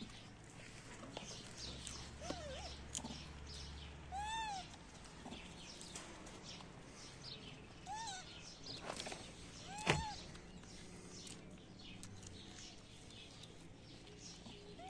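Short rising-and-falling animal calls, each one clear arching note, coming every few seconds over a steady scatter of quick high chirps. The loudest call, about ten seconds in, comes with a sharp knock.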